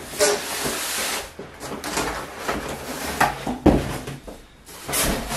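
Large cardboard box and its foam packing being handled as the box is opened: rustling and scraping of cardboard and foam, with a thump about two thirds of the way through.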